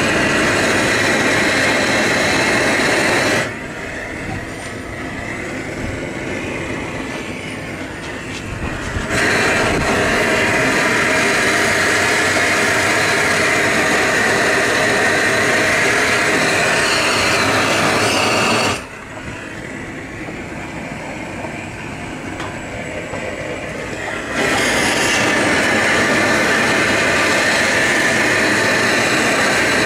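Propane roof torch burning at full flame with a loud, steady rush as it chars wood. Twice it drops to a quieter low flame for about five seconds, then opens back up to full.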